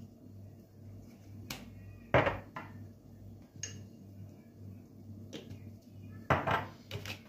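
A small spoon clinking against a ceramic bowl and a glass spice jar being handled: a few scattered clinks and taps, the loudest about two seconds in and a quick cluster near the end, over a faint low hum.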